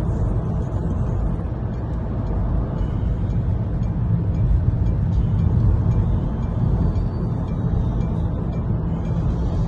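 Steady low rumble of a car's engine and tyres, heard from inside the cabin while driving at highway speed.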